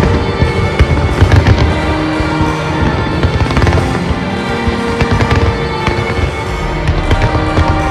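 A dense fireworks barrage: many shells bursting in rapid, overlapping bangs and crackles, loudest in the first second or two, with music playing at the same time.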